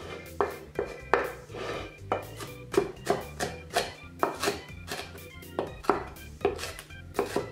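Large kitchen knife chopping onions finely on a wooden cutting board: irregular knocks of the blade on the board, about two to three a second, over background music.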